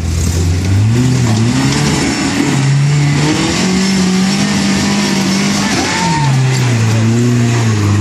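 Toyota pickup's engine revving up and down under load as the truck crawls up a rocky ledge. Revs hold higher through the middle and drop back about three-quarters of the way through.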